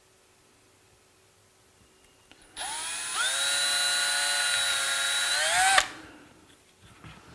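Power drill running for about three seconds: it spins up, holds a steady whine, then rises in pitch just before it stops. A 1/16 inch bit is drilling a pilot hole for a self-tapping screw.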